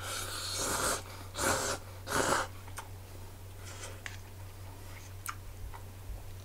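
A person slurping hot cup ramen noodles with chopsticks: three noisy slurps in the first two and a half seconds, then a few faint clicks.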